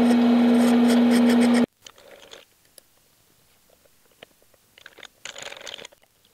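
Eastwood mini lathe running with a loud, steady hum that cuts off abruptly under two seconds in. After that, faint crunching and scraping with small clicks as a threading die in a die wrench is worked by hand onto a plastic rod held in the chuck.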